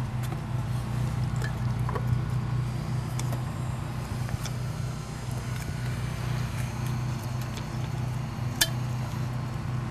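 A steady low hum runs throughout, with a few faint, light knocks of a wooden ladle against an unglazed clay pot as tamarind is mashed in water.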